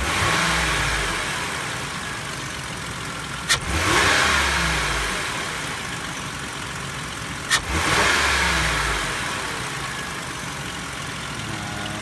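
2004 Ford Freestar's 3.9L V6 engine revved sharply three times, about four seconds apart, falling back to idle between. Each rev starts with a sharp snap and brings a hissing whoosh, the blow-off-valve-like "psht" on rapid acceleration that others link to a clogged catalytic converter.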